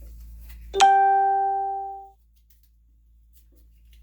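A single electronic notification chime about a second in: one clear tone that starts suddenly and fades out over about a second.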